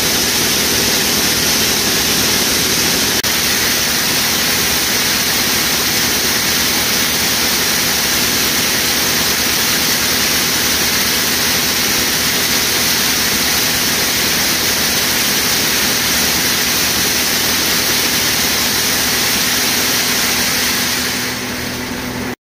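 Heavy corn-harvest machinery running steadily at work: a loud, even rush of machine noise over a low engine hum. It dips near the end, then cuts off abruptly.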